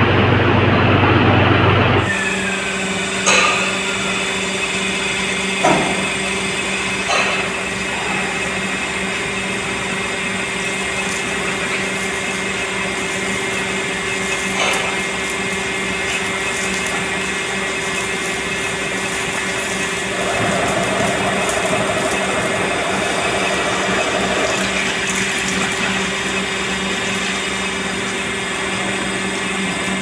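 Induction melting furnace running under load while melting iron scrap: a steady electrical hum with a higher whine above it. A few sharp metallic knocks come in the first half.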